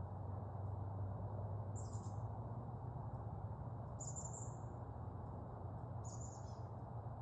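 A bird giving a short, very high call three times, evenly spaced about two seconds apart, over a steady low background rumble.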